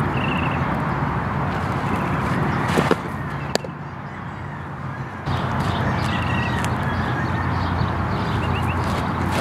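Softball pitch smacking into the catcher's mitt with a sharp pop about three and a half seconds in, over steady gusting wind on the microphone. Short trilled bird chirps come at the start and again near the end.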